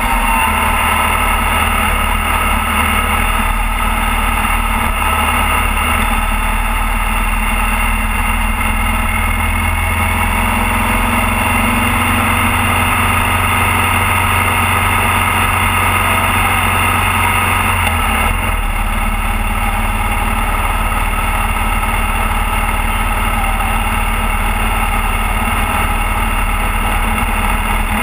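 Motorcycle engine running at a steady cruising speed, mixed with wind rushing past the camera. The engine note shifts about two-thirds of the way through.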